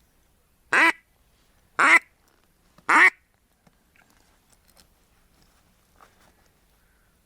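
A duck quacking three times, loud and close, about a second apart, followed by faint small rustles.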